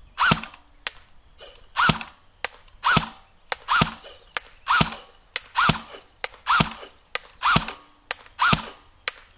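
Tokyo Marui compact electric airsoft submachine gun fired in single shots, about ten shots roughly a second apart. Each shot carries a short rising-and-falling whine from the motor, with fainter clicks between shots.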